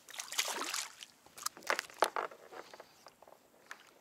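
Small snapper splashing at the surface as it is lifted from the water, followed by a few sharp knocks and taps as the fish is handled on the kayak for unhooking.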